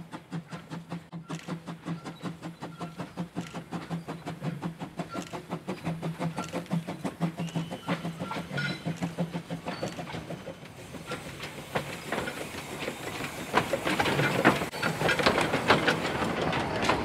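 Narrow-gauge steam locomotive drawing near and passing, its exhaust beating in a steady rhythm, with a low steady hum underneath that fades about ten seconds in. Over the last few seconds the coach wheels clatter louder over the rail joints as the carriages pass close by.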